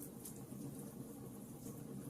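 Fire burning, a steady low rush with scattered small crackles and pops.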